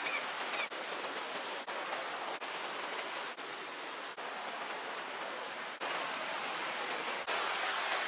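Steady rushing hiss of water, with brief dropouts about every second. A bird chirps a few times near the start.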